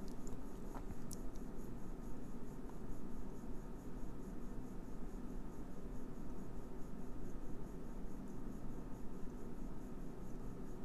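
Quiet room tone: a steady low hum under faint hiss, with a faint high pulsing repeating several times a second and a faint click about a second in.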